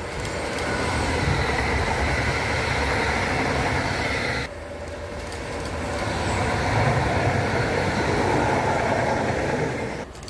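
Electric Stadtbahn tram-train on mainline track approaching and passing: a steady hum with rolling wheel and rail noise, building in loudness. About four and a half seconds in the sound drops off suddenly at a cut, then builds again as the train runs close past.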